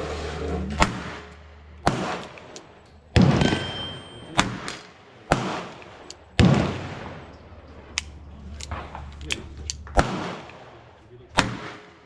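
A series of gunshots, about a dozen sharp reports at irregular intervals and of differing loudness, the loudest ones echoing as they die away. They come from a Chiappa Rhino 60DS revolver in 9mm being fired single action, with a steady low hum under the first couple of seconds.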